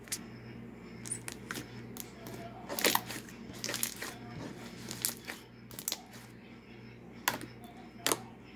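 Hands kneading and squeezing homemade slime, making an irregular run of sticky clicks and pops as it is folded and pressed. The loudest cluster comes about three seconds in, over a steady low hum.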